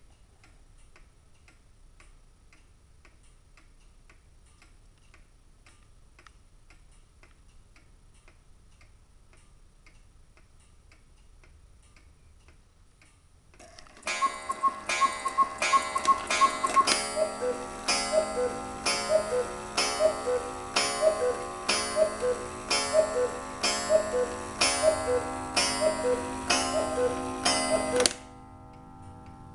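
Black Forest quail and cuckoo clock striking twelve. Its movement ticks steadily, then about halfway through the quail calls the full hour with a few quick high two-note calls, and the cuckoo follows with twelve lower two-note cuckoo calls about a second apart, over ringing tones. The calls stop abruptly near the end and the ticking carries on.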